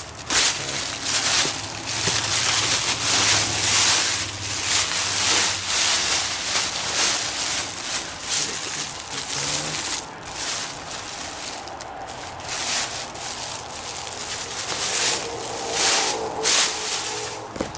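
Plastic shopping bags rustling and crinkling loudly as they are pulled open and rummaged through, in uneven surges.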